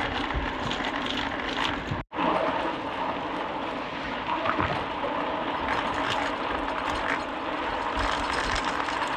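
Mountain bike being ridden over a rough, unpaved road: steady tyre and drivetrain rattle with wind on the microphone. The sound drops out abruptly for an instant about two seconds in.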